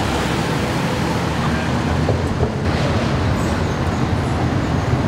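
Steady highway traffic noise, cars driving past on the parkway with a deep rumble.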